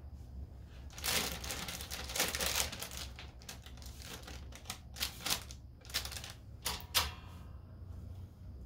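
Parchment paper crinkling and crackling as hands handle it between the plates of a rosin press, with a dense stretch of rustling about a second in and a few sharp crackles later on.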